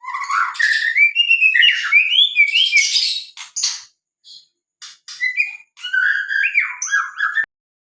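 White-rumped shama singing: fast phrases of rising and falling whistles mixed with sharp chattering notes. It comes in two bursts with a short break about four seconds in, and stops abruptly about seven and a half seconds in.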